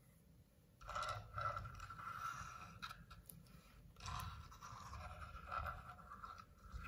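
Small plastic toy car rolled across a wooden cutting board, its wheels scraping and whirring on the wood in two runs.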